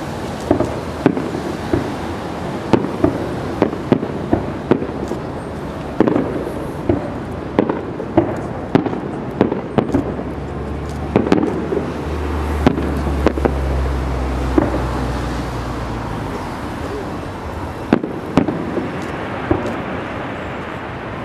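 Aerial firework shells bursting, a rapid series of sharp bangs over a steady background noise. A low hum swells in the middle and fades again.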